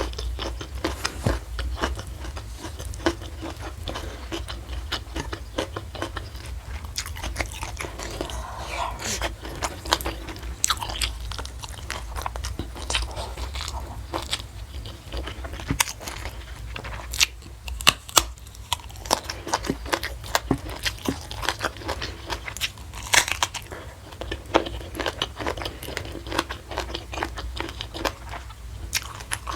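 A person eating close to the microphone: steady chewing with many crisp, irregular crunching bites, the sharpest a pair of crunches a little past halfway.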